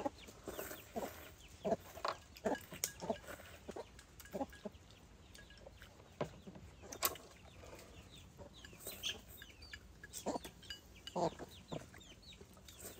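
Chickens clucking in the background, with scattered short clicks of chopsticks and spoons against porcelain bowls as people eat.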